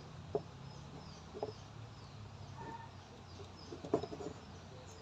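Faint clicks and taps of electrical wires being twisted together by hand into a splice, a few separate knocks with a small cluster about four seconds in. Birds chirp and cluck faintly in the background.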